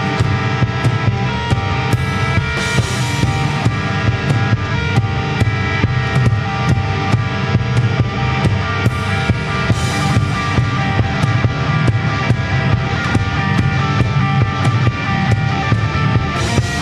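Live heavy rock band playing: distorted electric guitars and bass over a steady drum kit beat.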